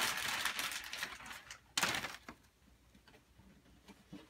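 Wrapping paper crinkling and rustling as a present is unwrapped, with one short louder rustle about halfway through, then quiet.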